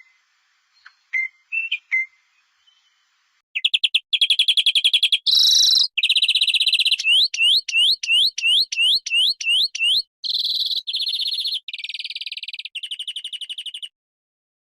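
Bird song: a few faint chirps, then from about three and a half seconds in a loud run of rapid trills, a series of rising whistled notes about two a second, and buzzy trills that stop near the end.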